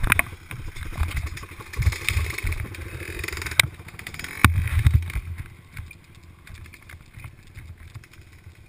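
Off-road vehicle engine running as it is ridden along a bumpy dirt track. It revs up over the first few seconds, with sharp knocks and rattles from the bumps, then eases off and quietens after about six seconds.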